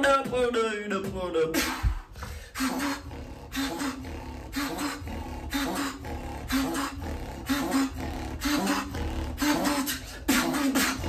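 Solo beatbox performance. A pitched vocal sweep falls over the first second or so, then a steady beat of sharp snare- and hi-hat-like mouth sounds plays over a pulsing, hummed bass line.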